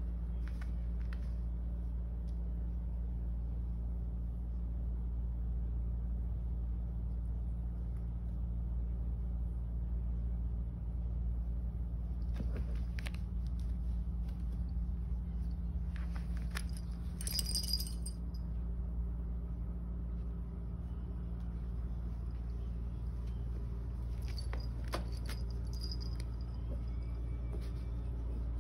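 Two long-haired cats play-wrestling on carpet: soft rustles of fur and paws scuffing, now and then, over a steady low hum, with a brief bright rattle about seventeen seconds in.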